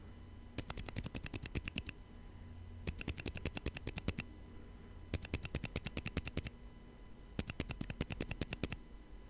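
Mechanical keyboard fitted with lubed silent tactile switches and PBT keycaps, typed on in four quick bursts of about nine keystrokes a second with short pauses between. The keystrokes are soft, muted clacks.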